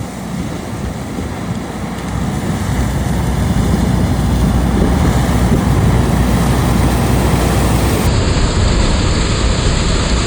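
John Deere combine running with a heavy, steady low rumble that grows louder over the first few seconds.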